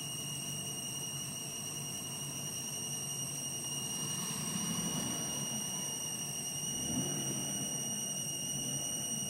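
Steady high-pitched electronic whine over a hiss and low hum from the audio system of an Xtrons 710G car head unit, several fixed tones held throughout. It is the unwanted noise behind the unit's sound problem, which the owner cannot place.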